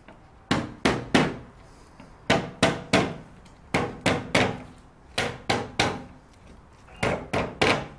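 Rubber mallet tapping a fixing bar down onto the edge of a multi-wall polycarbonate board: about fifteen short, sharp taps in quick groups of three, each group about a second and a half apart.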